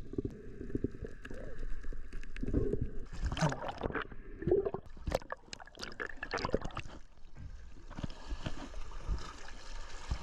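Water gurgling and sloshing, with scattered irregular knocks. About seven seconds in, the sound changes abruptly to a steadier, thinner hiss.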